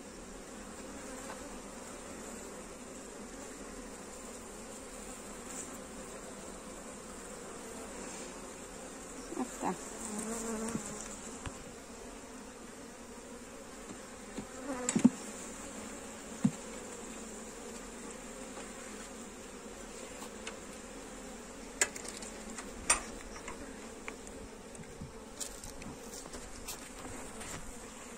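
Honey bees buzzing steadily around an opened hive, with a few sharp knocks as the wooden frames are worked with a hive tool, the loudest about fifteen seconds in.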